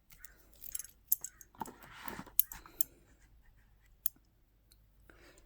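Costume jewelry being handled: light metal clicks and soft rustles as a brooch is turned over, most of them in the first three seconds, with one last click about four seconds in.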